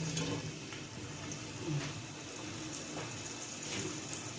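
Sliced onions sizzling in hot oil in a steel pot: a steady hiss, with a few light scrapes of a metal ladle.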